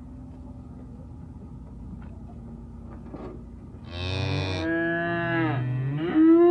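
Cattle mooing: a long, wavering moo begins about four seconds in, followed by a louder, steadier moo near the end.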